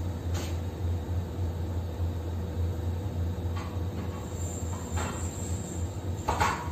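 Steady low drone of the ship's machinery, with a few light metal knocks and clicks as parts of a steel gym frame are fitted together. The sharpest knock comes just before the end.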